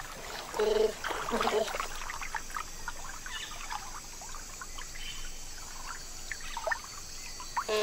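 Giant otters in the water, with two short pitched calls about a second in and light splashing. Then soft trickling, lapping water with scattered small clicks.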